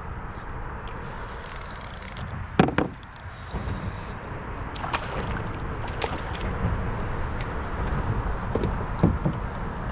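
Steady rumble of traffic crossing the road bridge overhead, with a few sharp knocks and clicks, the loudest about two and a half seconds in.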